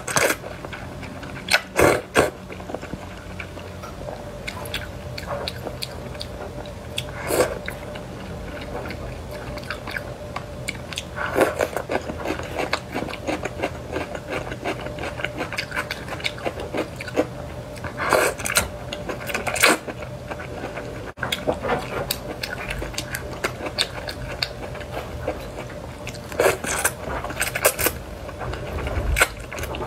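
A person eating hot pot noodles: several loud bursts of slurping noodles, spaced several seconds apart, with wet chewing and mouth clicks in between.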